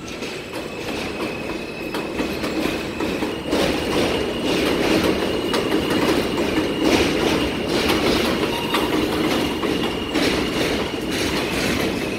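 R160 subway train pulling out of the station, its cars rumbling past with irregular clacks of the wheels over rail joints and a steady high whine above. It grows louder about three and a half seconds in.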